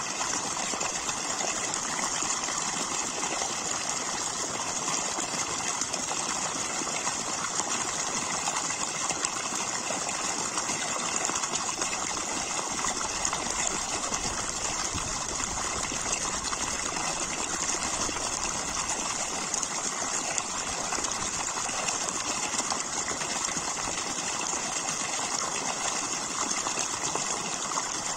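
Steady rush of churning, foaming water, an even hiss that keeps up without a break.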